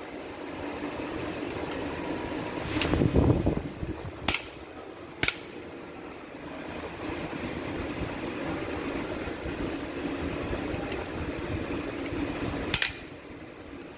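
Workshop sounds of engine teardown work: sharp metallic clicks of tools and parts, a heavier knock about three seconds in, over a steady mechanical hum.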